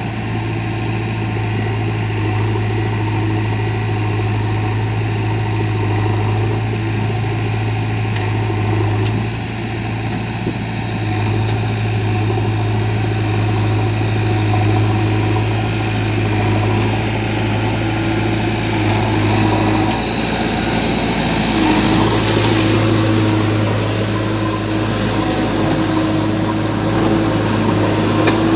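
Diesel engine of heavy earthmoving machinery running steadily with a deep hum that dips briefly a couple of times, and a stretch of rushing hiss about two thirds of the way through.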